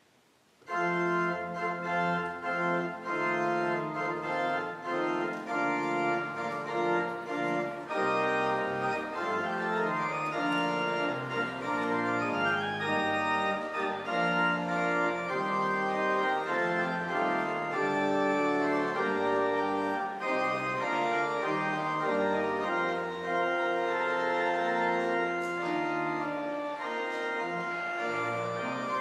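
Church organ playing a piece of held, changing chords. It comes in just under a second in.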